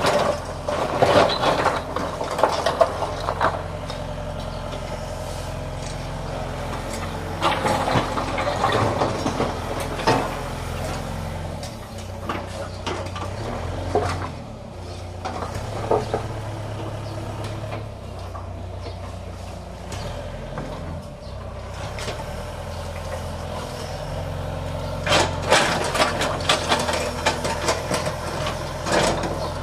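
Hyundai wheeled excavator's diesel engine running steadily, with repeated spells of clattering as the bucket scrapes up broken bricks and rubble and tips them into a dump truck bed.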